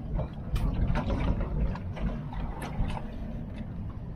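Low, uneven rumble with scattered sharp knocks and clicks aboard a small fishing boat.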